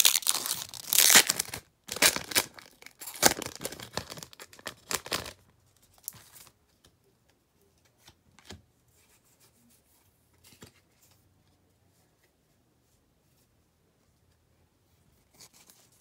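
Foil Pokémon booster pack wrapper being torn open and crinkled for about five seconds, then only a few faint clicks.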